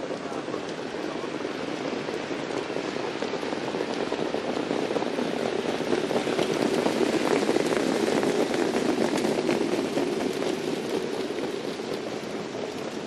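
Massed hoofbeats of a field of trotters and their sulky wheels on the track, a dense crackling patter that swells as the field passes close about halfway through and then fades as it moves away.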